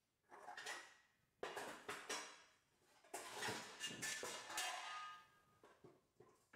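Dishes and cutlery clattering and clinking, in three spells of handling, the last with a short ringing note as a piece rings out.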